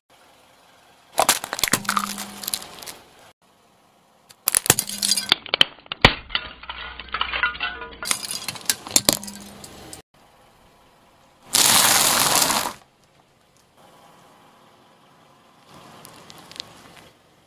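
A car tyre rolling over and crushing small objects on asphalt, in several separate bursts of sharp cracks and crackling. About twelve seconds in there is one dense crunch lasting just over a second, and a fainter squashing sound comes near the end.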